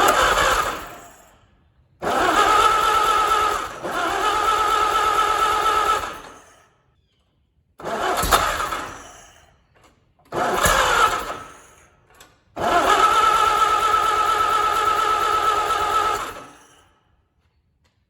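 Freshly rebuilt Allis-Chalmers WD 226 four-cylinder engine being cranked over on its first start attempt, in five separate bursts of about one to four seconds, each spinning down with a short gap before the next, the engine not yet staying running.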